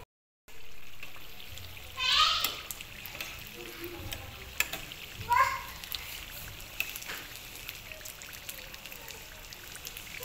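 Samosa pockets deep-frying in hot oil: a steady sizzle with many small crackles and pops. Two brief high-pitched calls stand out, about 2 and 5 seconds in.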